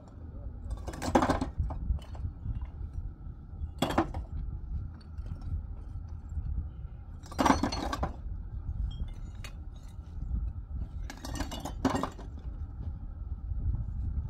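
Clay bricks clinking against one another as they are tossed by hand into a wheelbarrow: a sharp clink every few seconds, two of them close together near the end.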